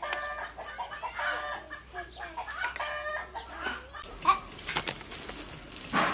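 Chickens clucking in short repeated calls for the first few seconds, then a few sharp clicks and rustles.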